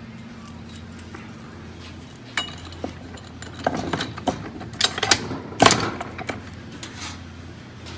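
Metal clinks and rattles of a transfer case's drive chain and sprockets being fitted over the shafts into the case: a handful of sharp clicks from about two seconds in, the loudest a little after the middle, over a steady low hum.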